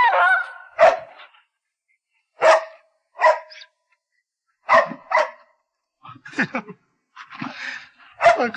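A dog barking in repeated short, sharp barks, one every second or so, after its owner drives away.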